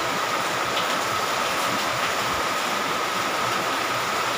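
Steady rain falling, an even hiss with no breaks, with a thin steady high tone running through it.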